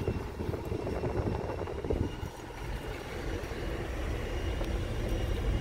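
Car crawling over a rough gravel road, heard from inside the cabin: a low rumble of engine and tyres, broken by many small irregular knocks and crunches from the gravel and bumps.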